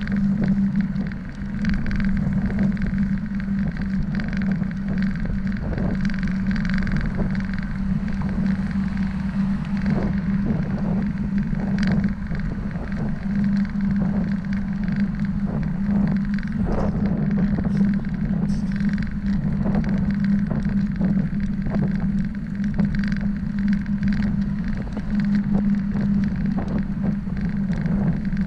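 Ride noise of a bicycle on a paved road, heard from a camera mounted on the bike: a steady low hum and rushing noise from tyres and wind, with frequent small clicks and rattles as the bike goes over bumps.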